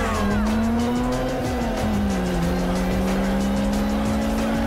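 Street-racing car engines running at high revs, a sustained drone whose pitch dips a little about two seconds in, mixed with the music soundtrack.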